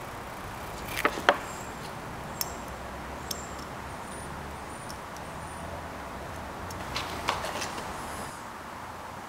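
Light clinks and knocks of forged pistons and piston rings being handled and set down on a workbench: two sharp clinks about a second in, a couple of faint ticks, then a cluster of knocks around seven seconds in, over steady low background noise.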